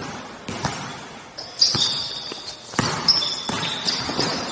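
Basketball bouncing on the court floor and sneakers squeaking during play. There are several sharp thuds, and short high squeaks come about a second and a half in and again around three seconds, echoing in a large covered court.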